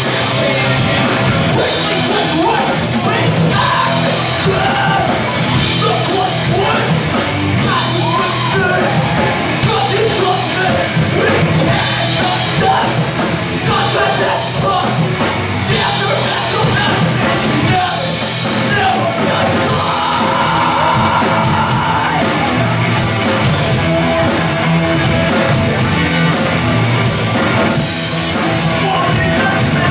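Live hardcore punk band playing loud: electric guitars, bass and drums, with a singer yelling into a microphone. Near the end the drums settle into a fast, even cymbal beat.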